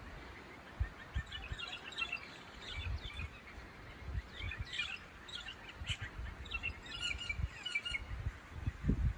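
Songbirds chirping and singing in the trees, many short high chirps and trills overlapping, with irregular low rumbling underneath.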